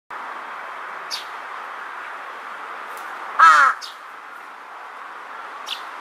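Large-billed crow giving a single loud caw about halfway through, short and dropping in pitch.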